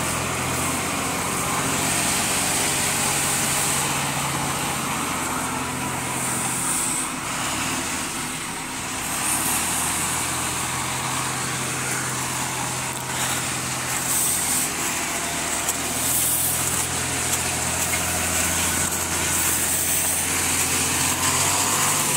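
Heavy truck's diesel engine running steadily under a constant hiss. The engine sound drops briefly about seven seconds in, then comes back.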